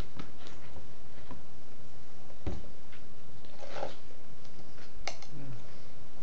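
A person eating close to the microphone: chewing and biting food, with a few sharp clicks and knocks, the loudest about two and a half and five seconds in.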